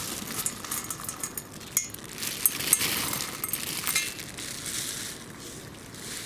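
Irregular light clinks, clicks and crackles, as of small hard objects knocking together.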